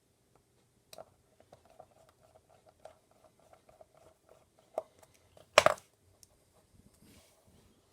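Small screwdriver working the tiny housing screws of a TowerPro 9g micro servo: a run of faint, light ticks and scratches. There is a louder knock a little before five seconds in and a loud, short clatter just under six seconds in.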